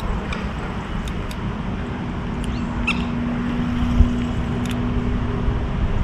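Outdoor ambience by a lake: a steady low rumble, with a few short bird calls near the middle and a steady low hum from about two seconds in until shortly before the end. There are a few faint clicks, and a single low thump about four seconds in is the loudest moment.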